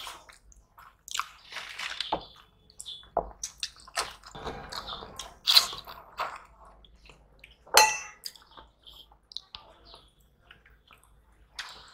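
Close-miked eating with the hands: fingers squishing and mixing rice with fish curry, chewing and mouth smacking, in irregular wet clicks. Two louder sharp sounds stand out, about halfway and two-thirds through, the second with a brief metallic ring like a hand knocking a steel plate.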